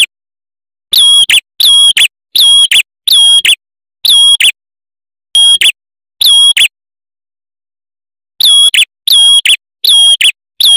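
Male ashy tailorbird (red-headed prenjak) singing: loud, clear whistled notes, each held level and ending in a quick flick, repeated roughly once a second, with a pause of about two seconds in the second half.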